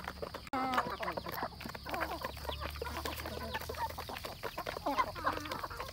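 A flock of chickens clucking while they feed, with many quick taps and clicks of beaks pecking at mash in the feed pans.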